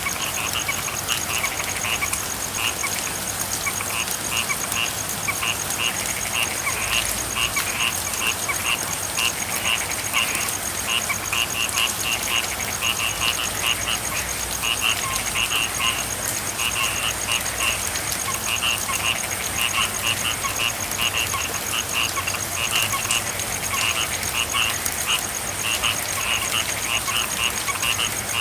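Frogs calling, short croaks repeating a few times a second without a break, over a steady hiss of rain.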